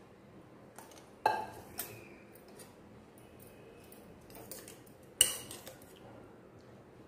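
Steel kitchenware clinking and knocking on a tabletop as a saucepan, tongs and utensils are set down and handled: two sharp metallic knocks that ring briefly, one a little over a second in and one about five seconds in, with a few lighter taps between.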